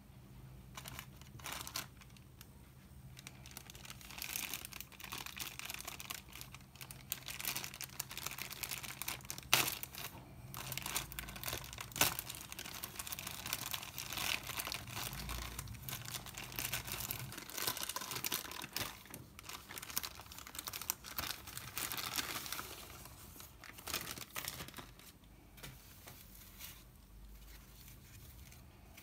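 Plastic and foil packaging being torn open and unwrapped by hand, crinkling and rustling irregularly, with two sharp snaps a few seconds apart about a third of the way in; the rustling eases off near the end.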